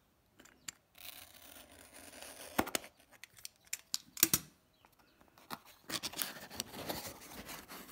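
Small cardboard box being opened by hand: scraping and tearing as the lid is worked loose, with a few sharp clicks, the loudest about four seconds in.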